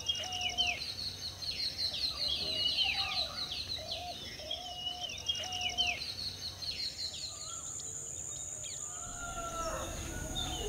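Morning bird chorus: several birds call at once, one repeating a short low whistled note over and over with higher chirps and rapid trills above it. The low repeated calls stop about two-thirds of the way in, and a steady high buzz carries on.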